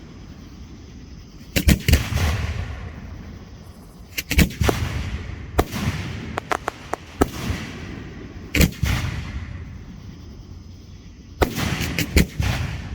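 Fireworks going off: groups of sharp bangs every two to four seconds, each dying away in a long rolling echo, with a quick run of cracks about six to seven seconds in.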